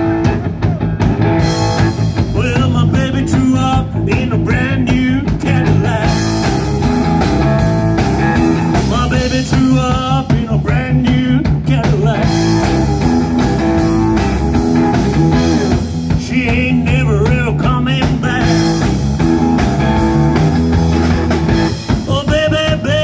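Live rock band playing amplified: electric guitar and electric bass over a drum kit, with a male voice singing at times.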